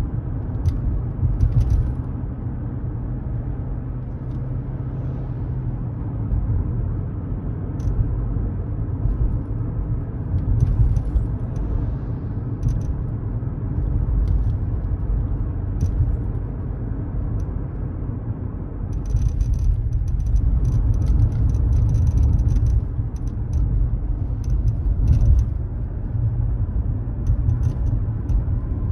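Inside a moving Mazda CX-5's cabin: a steady low road rumble, with short creaks from the left A-pillar and dashboard area that come in scattered ones and twos and then in a dense run about two-thirds of the way through. The owner wonders whether a separated spot weld causes the creak.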